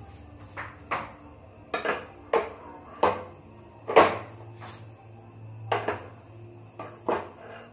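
Stainless-steel bowls and pots clinking and knocking against each other and the counter as they are handled, about ten sharp metallic clinks at uneven intervals.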